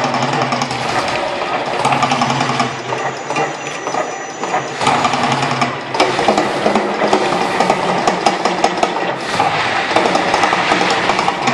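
Mirage volcano eruption show running at full blast: a loud, dense rumble with a rapid clattering rhythm that eases off briefly a few seconds in, then builds again as the fireballs flare across the lagoon.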